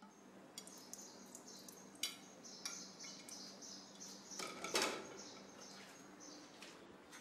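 Dishes clinking and clattering as they are handled at a kitchen dish rack. The clinks come irregularly, with the loudest clatter a little before five seconds in.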